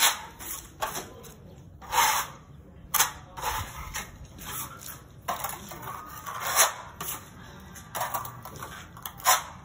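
Plastering trowel scraping and spreading skimming plaster over a wall in short, uneven strokes, about one every second, some louder than others.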